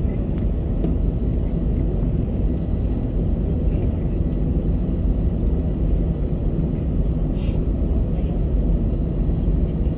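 Steady low rumble inside the passenger cabin of an Airbus A320-214, its CFM56 jet engines running and the airframe carrying the noise. One short faint hiss comes about seven and a half seconds in.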